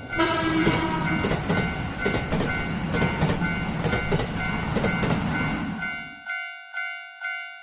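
A train passing with a clickety-clack of wheels over the rails while a Japanese railroad-crossing alarm rings its repeating 'kan-kan' bell, about two to three strokes a second. The train noise cuts off about six seconds in, leaving the crossing bell ringing alone.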